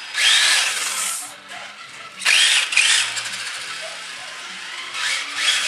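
Electric motors of Tamiya TT-01E radio-controlled drift cars, 20-turn brushed motors, whining as they rev in three bursts with the pitch rising and falling, over a hiss of tyres sliding on the floor.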